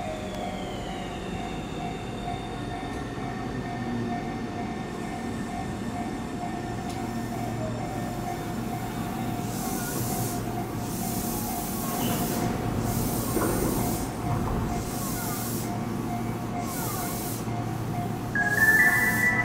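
A Tobu 30000-series electric train braking to a stop at a station platform, its motor whine falling in pitch as it slows, then standing with a steady hum as its doors open. A chime melody starts near the end.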